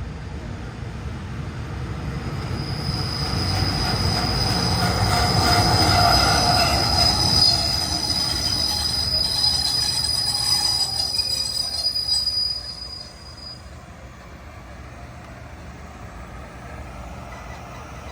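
Southbound SRT passenger train rolling into the station: a low rumble builds while a steady, high-pitched metallic squeal from the train rings over it. About thirteen seconds in the noise drops off sharply and the squeal stops, leaving a quieter rumble as the train comes to a halt.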